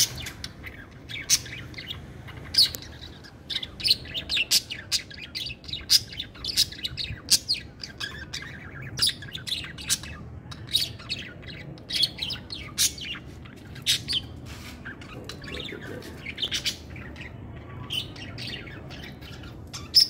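Caged parakeets, budgerigars among them, chirping: an uneven stream of short, sharp calls, several a second, all through.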